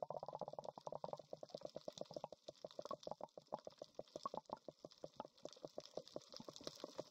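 Water heard underwater: faint muffled sloshing with a rapid, irregular crackle of small clicks.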